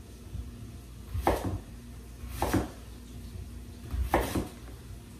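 Kitchen knife slicing through a raw sweet potato onto a wooden cutting board: three separate cuts, a second or more apart.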